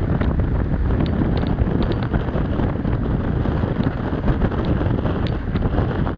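Strong wind buffeting the microphone of a handheld camera on a heeled sailing yacht, a loud, constant low rumble, with the rush of water streaming past the hull beneath it.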